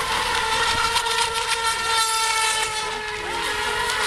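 Electric RC racing boat motors running flat out, a steady high-pitched whine made of several tones that shift slightly in pitch, over the hiss of the hulls on the water.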